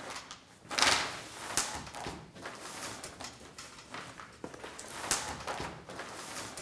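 A large sheet of paper-backed vinyl wrap film rustling and crackling as it is handled and spread over a truck hood, in uneven bursts, the loudest about a second in.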